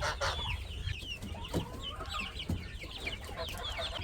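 Chickens clucking at feed, with a dense chatter of many short, high chirps that slide down in pitch.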